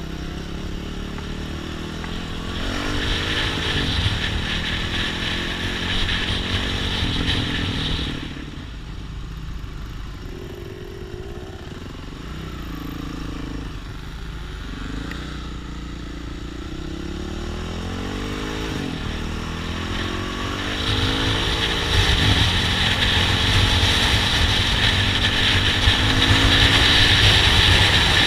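Trail motorcycle engine running while riding off-road, its pitch rising and falling repeatedly with the throttle and gear changes. A loud hiss rides over it in two spells, a few seconds in and again over the last several seconds.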